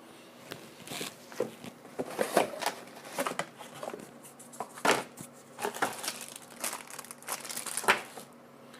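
Packaging being crinkled and rustled by hand while accessories are unpacked: many irregular, sharp crackles that stop near the end.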